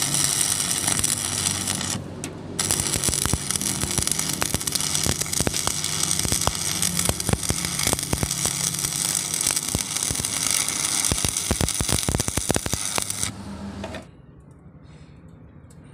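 Stick (arc) welding: the electrode's arc crackles and spits steadily as it fuses a steel hinge barrel to the frame. The arc breaks off briefly about two seconds in, is struck again, and stops about thirteen seconds in.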